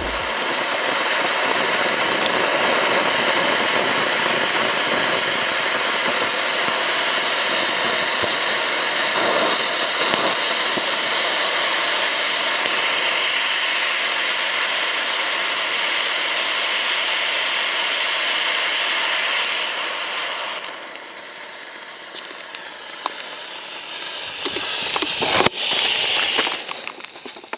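A fused battery of eighteen PyroArt Zwergenaufstand Category 1 firework fountains burning at once, giving a loud, steady hissing rush. About twenty seconds in it drops to a quieter sputtering hiss, with a few sharp cracks near the end.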